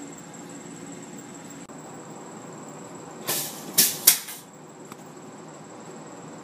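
Curtains and their curtain rod falling down: a clatter of three loud knocks in quick succession about three seconds in, followed by a small click, over a steady low hiss with a faint high whine.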